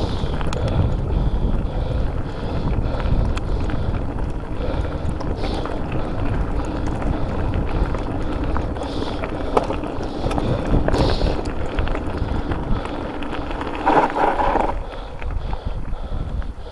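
Wind buffeting the microphone as a mountain bike rolls along a loose slate track, with tyre noise and scattered rattles from the bike. A short pitched squeak sounds about fourteen seconds in.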